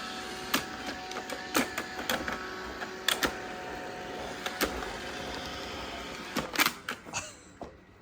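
Roomba robot vacuum running: a steady motor whir with a faint whine, broken by scattered sharp clicks and knocks, then stopping near the end.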